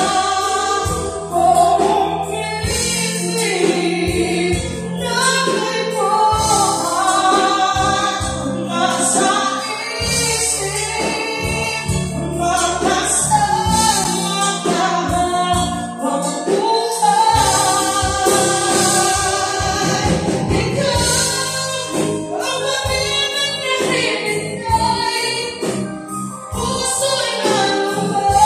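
Live band playing a song: women singing over electric guitar and drums.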